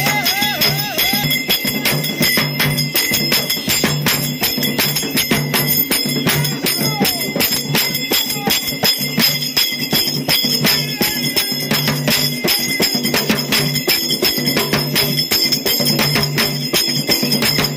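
Loud procession music: dense drumming with bright metallic jingling over it and a low beat repeating about once a second.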